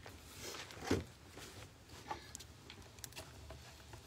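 Wood fire crackling in a fire bowl, with scattered small pops and clicks and one soft thump about a second in.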